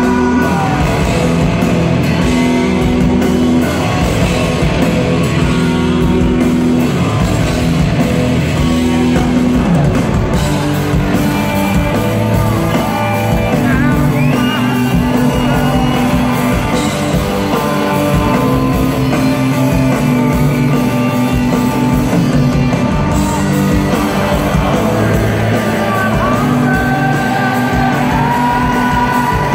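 Live rock band in concert: a male lead singer holding long sung lines over electric guitars and drums, heard from the audience in a large hall.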